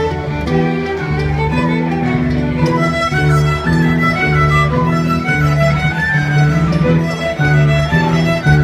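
Live contra dance band playing a tune: fiddle and tin whistle on the melody over a steady upright bass line and keyboard.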